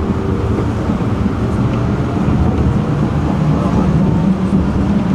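Tram running along its track with a steady rumble. From about halfway through, a motor hum steps up in pitch and grows louder as the tram picks up speed.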